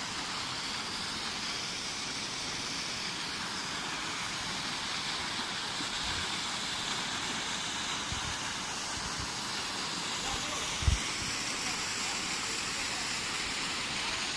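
Waterfall pouring into a rock pool: a steady rush of falling water, with one brief low thump about eleven seconds in.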